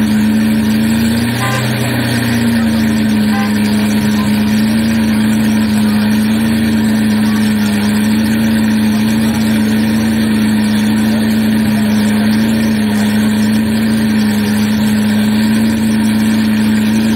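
Ferrari 512 TR's flat-twelve engine idling steadily, with a slight brief rise in its note about one to two seconds in.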